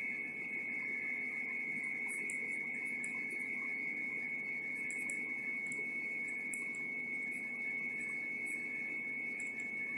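A steady high-pitched tone, like an electrical whine, sits over faint, irregular scratching of a Linc Oilflo ballpoint pen writing on notebook paper.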